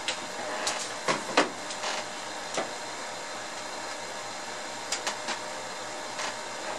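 Several sharp clicks and knocks of a cable connector being plugged into an oscilloscope input and of cables being handled, the loudest about a second and a half in and a pair near the end, over a steady background hiss.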